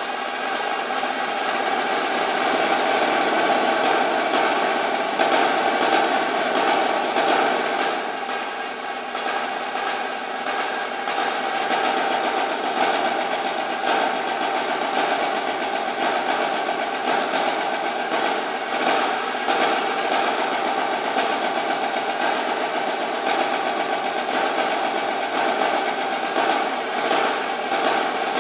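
Marching snare drum played with sticks: a fast, unbroken stream of rudimental rolls and strokes, with the drum's ringing overtone running under it. It dips a little in loudness about eight seconds in.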